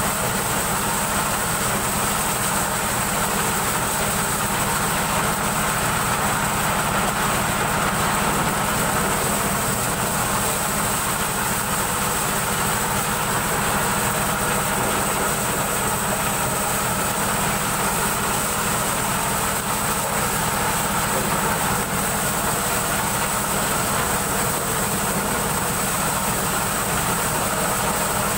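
Engine-driven corn sheller running steadily, its engine and threshing drum making a constant loud mechanical noise.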